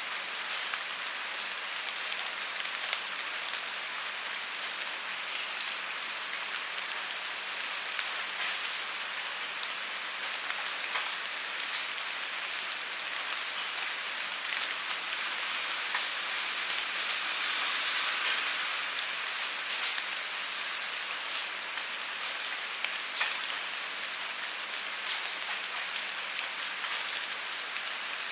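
Steady rain falling, a continuous hiss with scattered sharper drop ticks and a slight swell in intensity about two-thirds of the way through.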